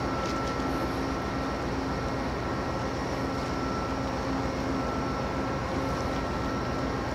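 Container RORO cargo ship's engines and machinery drone steadily across the water as it passes: an even low rumble with a steady hum over it.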